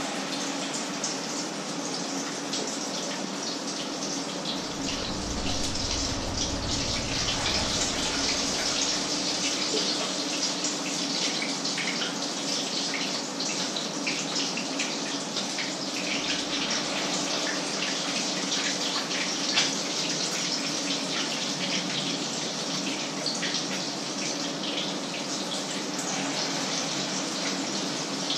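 Food frying in hot oil in a pan on the stove: a steady sizzle full of fine crackles, over a low steady hum, with a single sharp knock about two-thirds of the way through.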